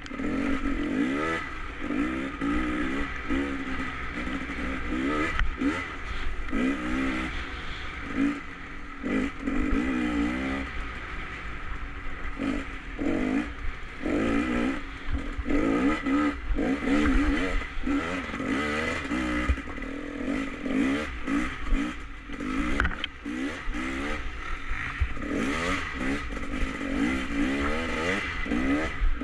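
Enduro motorcycle engine being ridden, its revs rising and falling again and again as the throttle is opened and closed.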